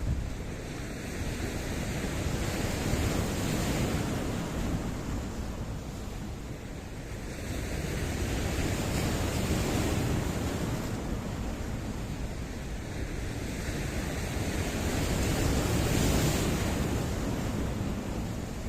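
Sea waves surging and washing over rocks, swelling three times in long, even rushes of water noise.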